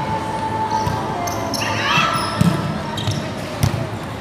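Volleyball rally in an echoing sports hall: sharp smacks of the ball being hit, the two loudest about two and a half and three and a half seconds in, over players' calls and the hall's chatter.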